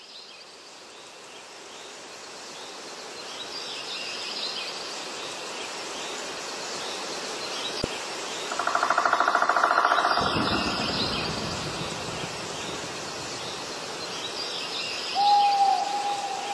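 Forest ambience fading in: birds chirping over a steady background hiss, a loud rapid trilling call about halfway through, and a short whistled note near the end.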